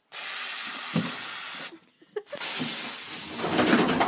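A loud steady hissing noise, broken once by a short pause about two seconds in; the second stretch is rougher and grainier.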